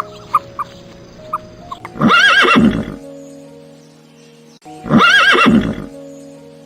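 A horse whinnying twice, each a quavering call of about a second, over steady background music.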